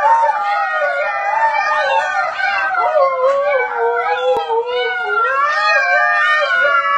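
A Siberian husky mother and her puppies howling together, several high voices overlapping and wavering up and down in pitch without a break. A single sharp click sounds a little past halfway.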